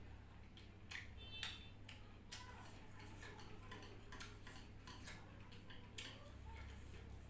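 Faint, irregular clicks of someone eating close to the microphone: wet chewing and mouth sounds over a steady low electrical hum.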